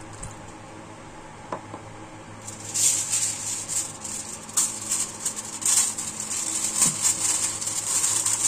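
Sheet of aluminium foil being handled and crinkled, starting about two and a half seconds in: loud, irregular crackling rustles.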